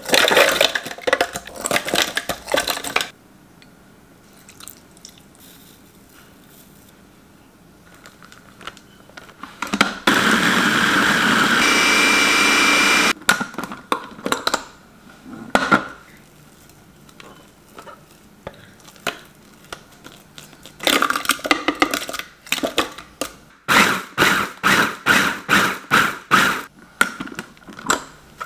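Hamilton Beach food processor running for about three seconds, grinding shrimp into a paste. Before and after it come clattering knocks from handling the plastic bowl and lid, ending with a quick run of knocks.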